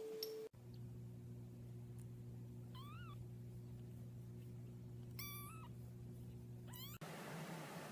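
A domestic cat meowing three times, short high calls: a quick rising-and-falling meow about three seconds in, a longer held one a little after five seconds, and a brief upward one just before seven seconds, over a steady low hum.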